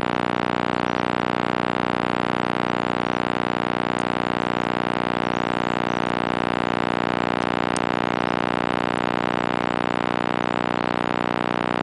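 Mantled howler monkeys roaring in chorus overhead: a continuous deep, droning roar at an even level.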